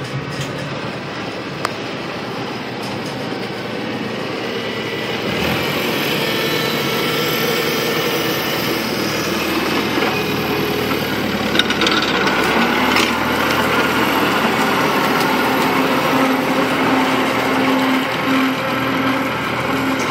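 1947 Farmall Cub's four-cylinder flathead engine running as the tractor drives off with its belly mower, getting louder about a quarter of the way in. A steadier low tone joins in a little past halfway, and there is one brief sharp click just before it.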